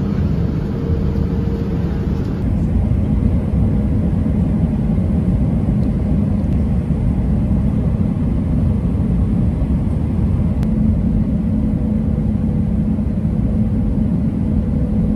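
Airliner cabin noise in flight: a steady low roar of engines and airflow with a faint steady hum.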